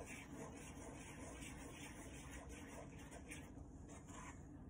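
Spoon stirring a dry flour mixture in a stainless steel bowl: faint, rhythmic scraping strokes, about four a second.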